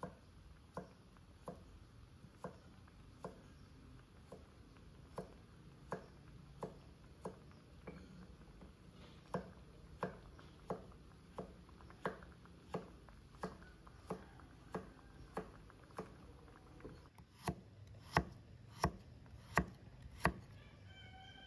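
Kitchen knife chopping carrots on a thick round wooden chopping block: a steady knock about three times every two seconds. The chops grow louder near the end.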